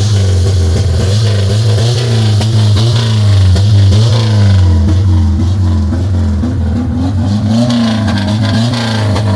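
A vehicle engine running loud with a deep, steady rumble, its pitch wavering slightly up and down.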